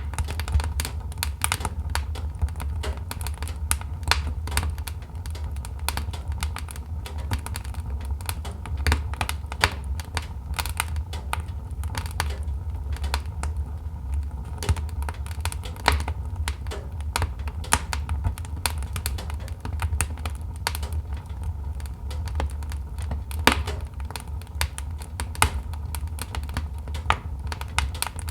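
Wood fire burning in a fireplace, logs crackling and popping in dense, irregular snaps over a steady low rumble of the flames.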